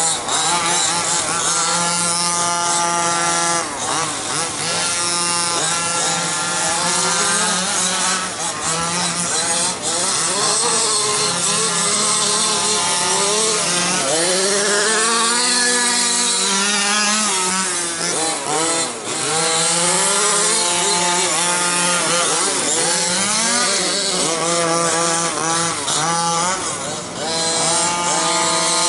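Small two-stroke petrol engines of two 1/5-scale RC buggies racing, the pitch climbing and dropping again and again as the throttles are opened and closed around the track.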